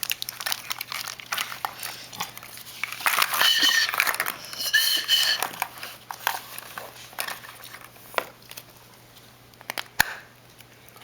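Candy wrapper and plastic egg crinkling and rustling as they are handled, with scattered clicks and a sharp click about ten seconds in. Two brief high-pitched squeaks come around three and a half and five seconds in.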